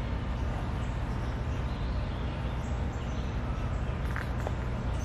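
Outdoor river ambience dominated by a steady low rumble of wind on the microphone, with a faint hiss above it.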